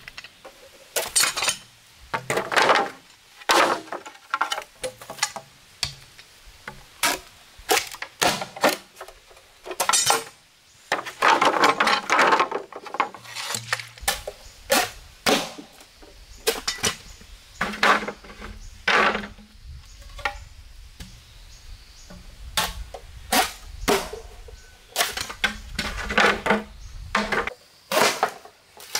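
Irregular knocks and clinks of hard objects being handled and set down, some ringing briefly. A low hum starts about halfway through and stops shortly before the end.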